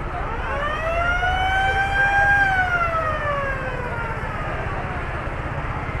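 Fire engine siren sounding one long wail: the pitch rises for about two seconds, holds briefly, then falls away over the next two, over a steady low rumble.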